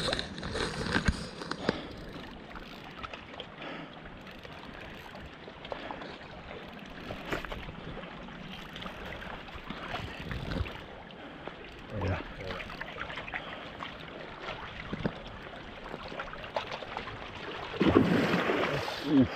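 River water lapping and gurgling at the bank, a steady wash of noise with scattered faint clicks, and a louder burst of noise near the end.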